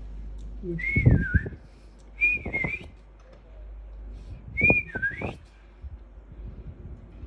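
Three short whistled phrases, each a clear tone that bends up and down in pitch: one about a second in, one about two seconds later, and one near the middle.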